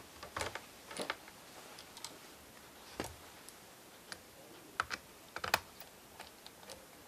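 Irregular sharp clicks and taps of a small screwdriver working the last two screen-bezel screws into an Acer Aspire 5552G laptop's plastic lid.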